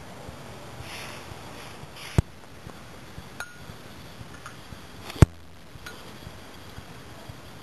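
Metal tweezers clinking sharply against a glass beaker, twice, about two and five seconds in, with a fainter glassy ping between them, over a low steady hiss.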